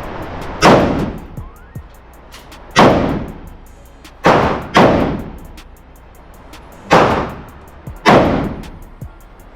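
Six single rifle shots from an AR-15, fired one at a time at uneven intervals, each a sharp crack with a short echo; two come about half a second apart near the middle.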